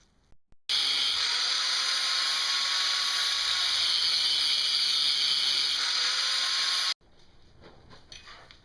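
A handheld power grinder grinding steel: a steady, loud hiss of abrasive on metal over the motor's faintly wavering whine, starting and stopping abruptly.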